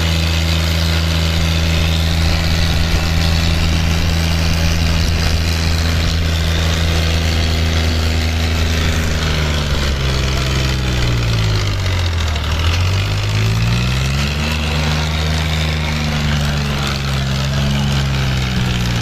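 Diesel engines of a John Deere and a Kubota tractor running hard under full load in a tug-of-war pull. About halfway through, the engine pitch sinks steeply as the engine lugs down under the strain, then climbs back within a couple of seconds and holds steady.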